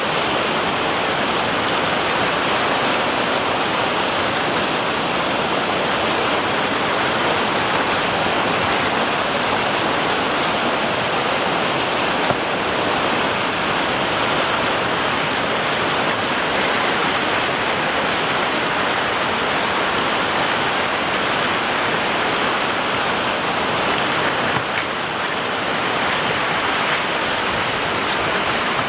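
Whitewater rapids of an artificial canoe slalom channel rushing steadily, a dense, unbroken wash of water noise.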